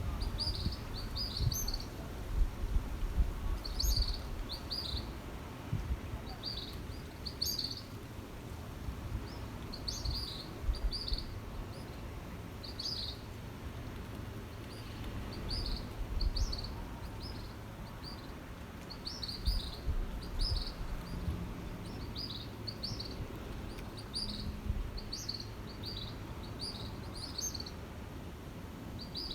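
Small birds chirping over and over, short high chirps coming every second or so, with a low, uneven rumble underneath.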